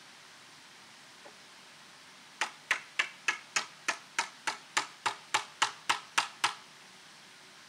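A mallet knocking a wooden peg into a pine bench's through-tenon joint to lock the stretcher to the leg: about fifteen quick, sharp wooden knocks at roughly three or four a second, the last few slightly louder.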